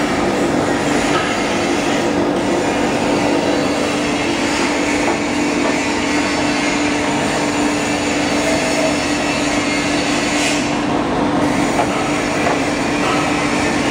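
Foam-cutting machine running steadily while it slices memory foam into thin sheets: a constant mechanical rush with a steady hum, and a brief brighter hiss about ten seconds in.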